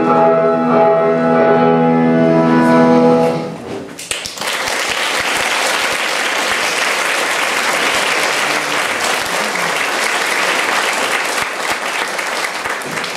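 Classical ballet music ending on a held chord a few seconds in, followed by steady audience applause.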